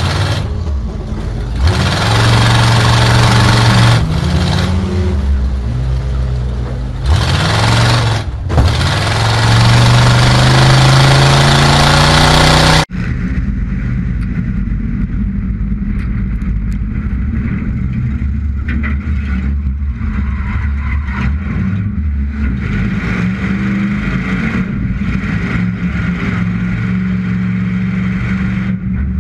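A racing car's engine under hard acceleration, heard loud from inside the caged cabin amid heavy rushing noise. Its pitch climbs and falls as the throttle is worked, with two brief lifts. About 13 s in the sound changes abruptly to a steadier, less hissy engine running at speed.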